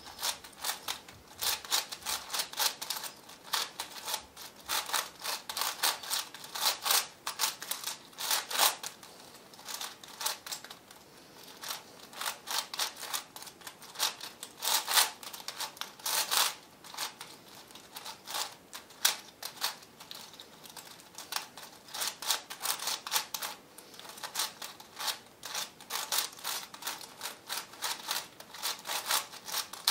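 A V-Cube 7 (7x7x7 twisty puzzle) being turned by hand: rapid, irregular clicking and clacking of its plastic layers, in flurries with short lulls now and then.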